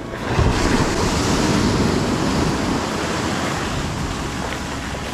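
Sea surf breaking and washing up a sandy beach at the water's edge. A rush of foam swells suddenly about half a second in, then slowly fades as the wash spreads up the sand.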